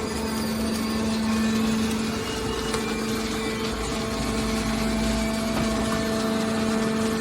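Hydraulic can baler running: its pump motor gives a steady hum with a low rumble that swells for a couple of seconds in the middle.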